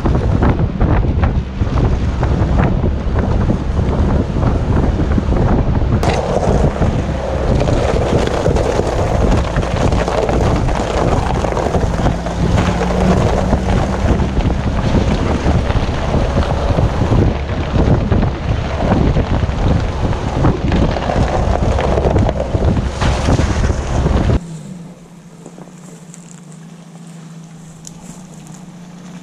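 Wind buffeting the microphone from a moving vehicle with its window open, over a low rumble of road noise. About 24 s in it cuts abruptly to a quieter scene: a UAZ off-roader's engine running steadily some way off.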